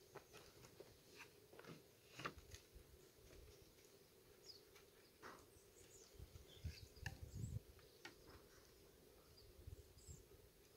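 Near silence, with faint scattered clicks and ticks and a little low rumble.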